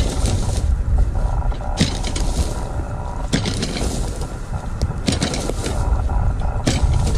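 A shopping trolley pushed and dragged like a rake through woodland leaf litter and twigs, crackling and scraping in strokes about every one and a half seconds over a steady low rumble.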